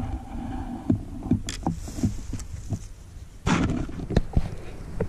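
Footsteps and brush rustling in dry grass and patchy snow: irregular dull thuds, with a louder rustle about three and a half seconds in.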